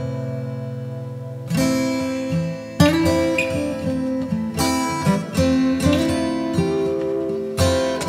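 Background music on acoustic guitar: a chord rings and fades, then plucked notes and chords pick up again about a second and a half in and carry on at a gentle pace.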